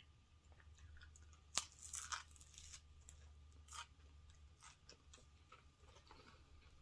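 Faint close-up chewing and crunching of food, with a sharp click about one and a half seconds in and a short run of crunches just after it.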